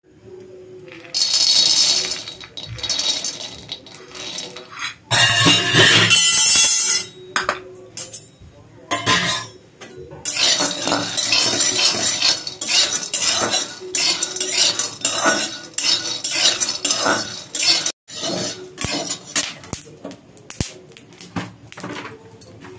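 Raw peanuts rattling and clinking in a metal pan as they are dry-roasted and stirred with a spatula. Two louder rushes of rattling come in the first seven seconds, followed by irregular clinks and scraping of nuts and spatula against the pan.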